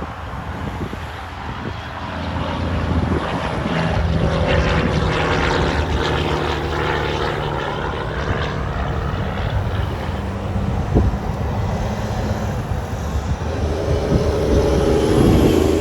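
Heavy truck's diesel engine running with a steady low drone, growing louder a few seconds in and again near the end.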